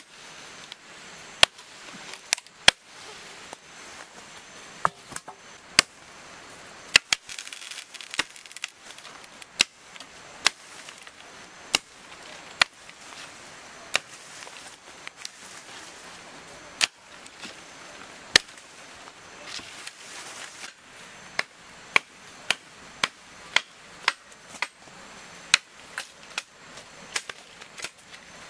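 A series of sharp, dry knocks at an irregular pace of roughly one or two a second, like blows of a blade or tool on a hard surface.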